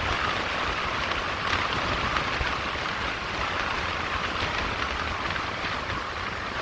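Steady rushing road and wind noise of a car on the move.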